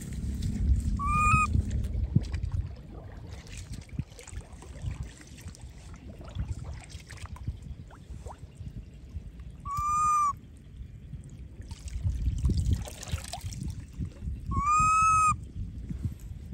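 Baby macaque crying: three short, high, slightly arched calls, one about a second in, one near the middle and a longer, louder one near the end. Wind noise and splashing water run underneath.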